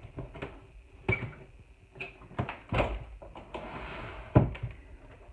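Handling noise from a handheld phone camera being swung around: irregular knocks, clicks and rubbing, the loudest knock about four and a half seconds in.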